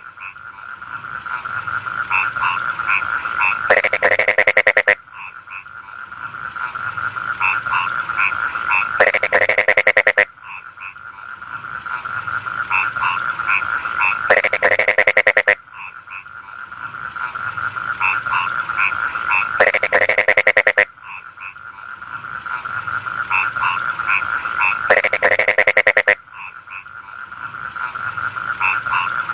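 Chorus of rice-field frogs calling: a steady trill with short chirping calls over it, and about every five seconds a loud, rapidly pulsed croak lasting about a second. The same few seconds repeat identically throughout.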